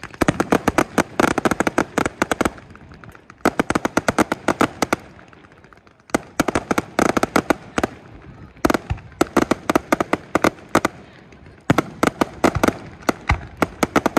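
Aerial fireworks going off in rapid volleys of sharp bangs and crackles. There are about five volleys, each a second or two long, with brief lulls between them.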